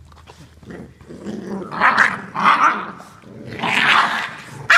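Puppies growling as they wrestle in play, in short bursts from about two seconds in, the longest near the end, which closes with a sharp knock.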